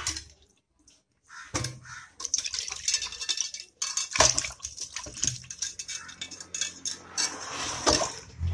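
Water sloshing and splashing in an aluminium basin as hands scrub peeled cassava roots clean, with irregular knocks against the metal basin.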